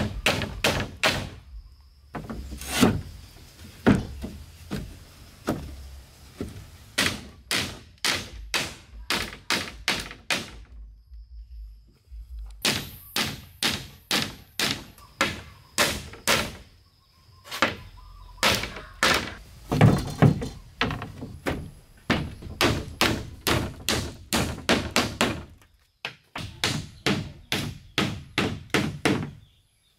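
Hammer driving nails into the planks and posts of a wooden wall frame: runs of sharp strikes, two or three a second, broken by short pauses.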